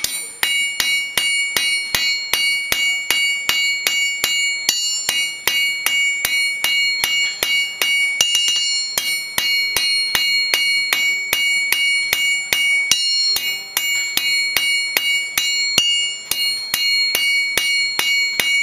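Steel hammer striking hot round stock on a steel anvil, drawing it down to a point: a steady run of blows about three a second, each leaving a clear, high ring that carries into the next blow. The bright ring is the mark of a hard anvil and hammer with good rebound.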